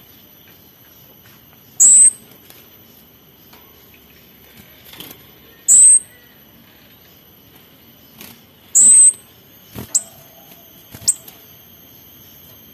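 Orange-headed thrush calling in loud, very high, shrill notes: three longer calls spaced three to four seconds apart, then two short sharp ones near the end. Faint steady high-pitched tones run underneath.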